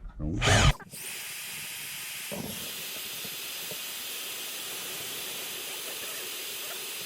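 Oxy-acetylene cutting torch burning with a steady hiss, after a short loud rush in the first second. A light knock about two and a half seconds in.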